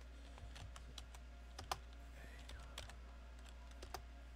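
Computer keyboard keys clicking as a word is typed, an irregular run of light keystrokes with a sharper click about a second and a half in, over a steady low hum.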